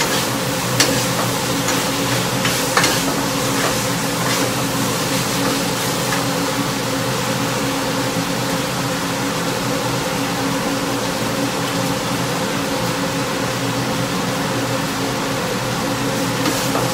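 Chicken and bamboo shoots sizzling in a wok over a gas burner, under the steady hum of a range hood fan. A couple of sharp clicks of the spatula against the wok come in the first three seconds.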